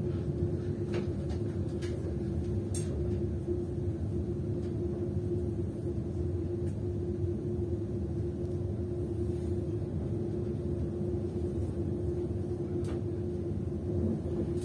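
Steady rumble of a moving train heard from inside the carriage, with a constant low hum and a few faint clicks.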